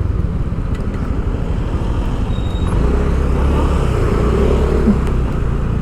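Motor vehicle engine and road noise while driving through city traffic, the low engine note getting stronger about three seconds in as the vehicle pulls away from the turn.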